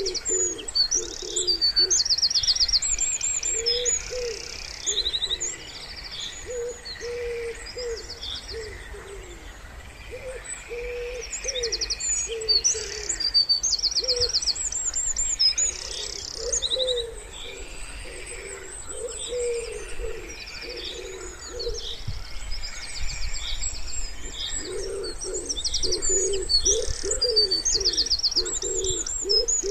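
Wood pigeons cooing in repeated low phrases, with small songbirds chirping and singing quick high trills over them.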